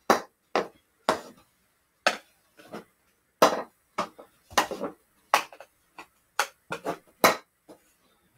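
Hockey stick blade striking a small hockey ball as it is passed off a wall and caught on the stick again: a string of sharp knocks and clacks, irregular and roughly two a second, some in quick pairs.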